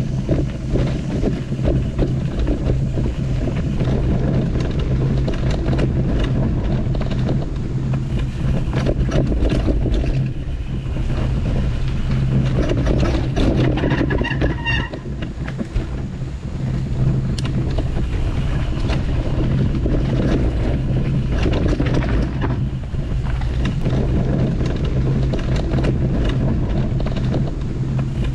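Mountain bike rolling over a dirt forest trail: a steady rumble of tyres and wind on the microphone, with frequent rattles and clicks from the bike over roots and rough ground.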